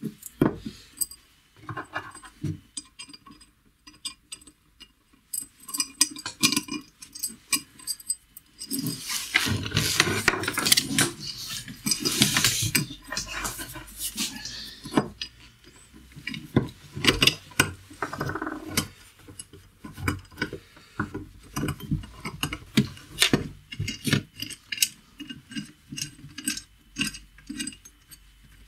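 Welded steel bracket parts and an angle grinder being handled on a workbench: repeated metal clinks, knocks and scrapes, with a denser, louder stretch of noise a third of the way in.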